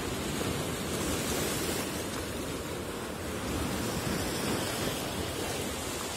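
Steady wash of sea surf on the shore, swelling gently now and then.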